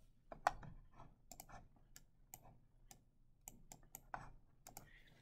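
Faint, irregular clicks and taps of a stylus on a tablet screen while digital ink is erased and redrawn, well over a dozen spread through, the loudest about half a second in.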